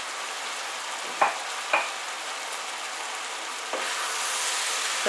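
Chicken and vegetables sizzling steadily in a stainless steel frying pan, with two short knocks a little after a second in. Near the end a wooden spoon starts stirring the couscous in, and the sizzle grows a little louder and brighter.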